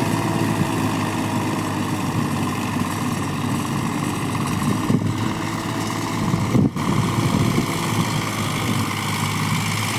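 Swaraj tractor's diesel engine running steadily under load as it pulls a tillage implement through the soil, with a brief drop-out about two-thirds of the way through.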